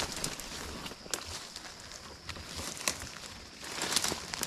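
Footsteps through dry leaf litter and brush, with leaves rustling and twigs crackling; the steps quieten in the middle and grow louder again near the end.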